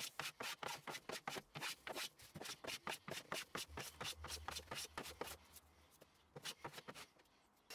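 Hand planing and scraping of a glued-up redwood panel to take off dried glue and paper: quick, short rasping strokes, about five a second, that thin out and stop about six seconds in.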